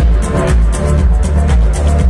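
Electronic dance music from a live DJ set played loud over a club sound system. A steady kick drum lands about twice a second under high ticking hi-hats.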